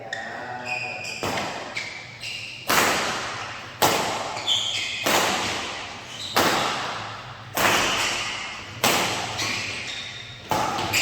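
A badminton rally: rackets striking the shuttlecock in a steady exchange, about seven sharp hits roughly a second and a quarter apart, each echoing in the hall. Short squeaks of shoes on the court floor come between the hits.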